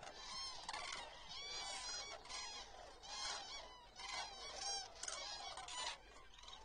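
A large flock of common cranes calling, many short trumpeting calls overlapping one after another.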